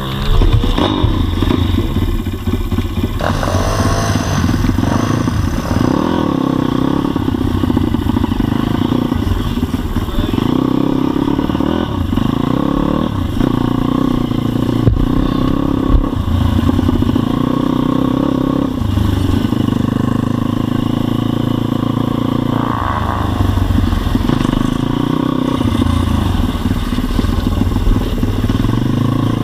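Pit bike's single-cylinder four-stroke engine running close to the microphone as the bike is ridden at low speed, the pitch rising and falling again and again with the throttle.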